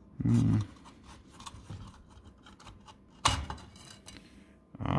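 Painted sheet-metal back cover of a Jensen #85 toy steam engine being worked loose and lifted off its wooden base by hand, with light scraping and rattling and a sharp metallic click about three seconds in.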